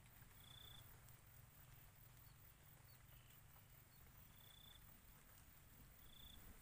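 Near silence: faint field ambience with a low rumble and a few short, high, faint chirps a second or two apart.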